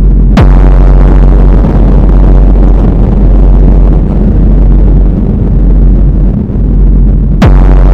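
Loud, steady low rumbling drone from a dark film soundtrack, broken by two sharp hits with a quick downward sweep, one about half a second in and one near the end.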